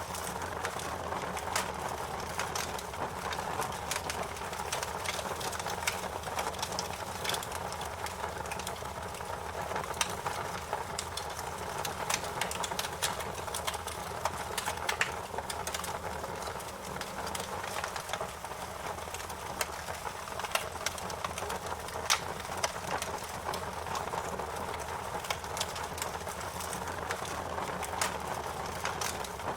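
Wood fire crackling: a steady rush of flames with frequent sharp pops and snaps scattered throughout, one louder pop about two-thirds of the way in.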